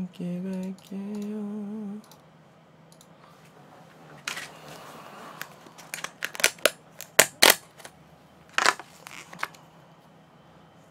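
Crinkling and snapping of a plastic food container and a plastic spoon being handled and opened. A dense run of sharp crackles comes between about six and seven and a half seconds in, with a couple more snaps near nine seconds. The first two seconds hold a brief hum of a few held notes.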